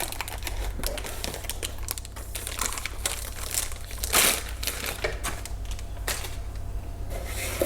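Packaging crinkling and rustling as it is handled, in many small crackles, with a louder rustle about four seconds in.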